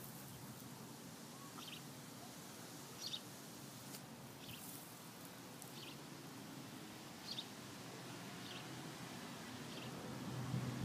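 Faint outdoor ambience with a bird giving about seven short, high chirps, a second or so apart.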